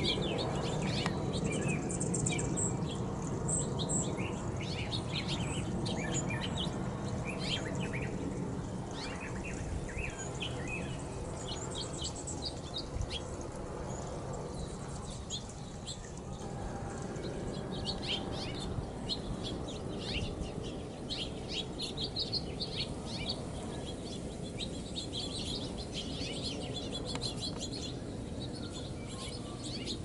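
Several songbirds chirping and calling, many short chirps and trills overlapping, over a steady low background rumble.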